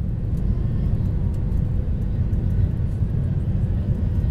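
Cabin noise of a Ryanair Boeing 737 accelerating down the runway for takeoff: jet engines at takeoff thrust, heard from inside over the wing as a steady, deep rumble.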